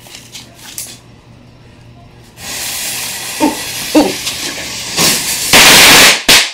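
Small firework set off on a tile floor, hissing steadily from about two and a half seconds in. The hiss swells much louder near the end and is followed by a short, sharp burst.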